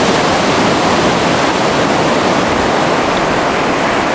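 Steady, loud rush of ocean surf breaking on the beach.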